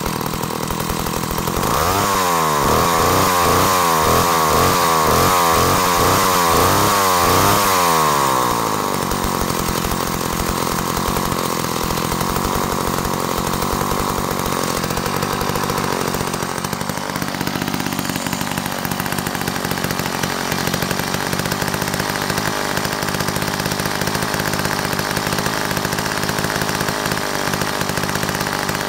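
McCulloch Mac 15 chainsaw's two-stroke engine running. About two seconds in the throttle is blipped repeatedly, the pitch rising and falling about eight times over six seconds, then it settles to a steady idle. The owner reckons the carburettor is not set right.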